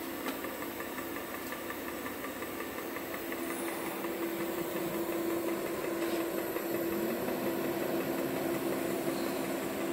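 Axxair SAXX-200 orbital TIG welding set running a test weld: a steady machine hum that slowly grows a little louder. There is faint regular ticking, about four a second, in the first few seconds.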